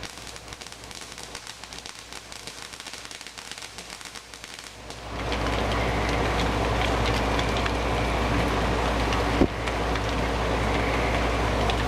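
Rain falling, light and crackly at first, then suddenly much heavier and louder about five seconds in, and staying steady. A single sharp pop sounds near the ten-second mark.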